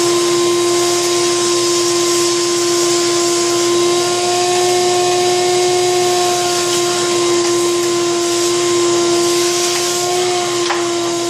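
Shop vac running through a homemade bucket cyclone separator, a steady whine over rushing air hiss as the hose sucks up sawdust and wood scraps. One short click near the end.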